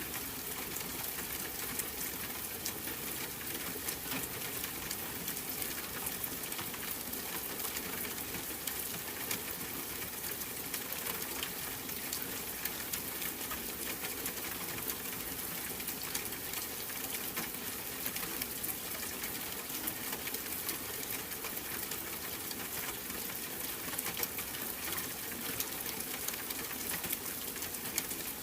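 Steady rainfall: a dense patter of drops over an even hiss.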